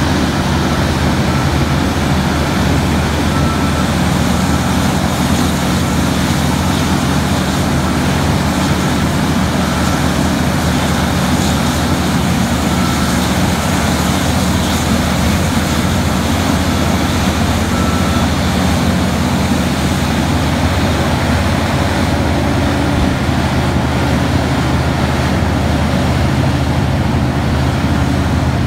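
Engines of a Terex RH170 front shovel mining excavator running steadily at working speed: a loud, even mechanical drone with no breaks.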